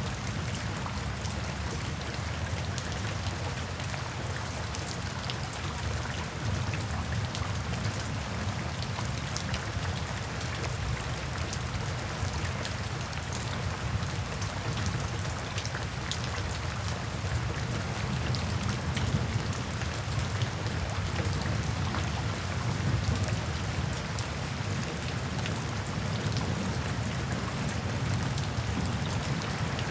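Steady rain falling on a tin roof, a continuous wash of noise with many individual drops tapping on the metal.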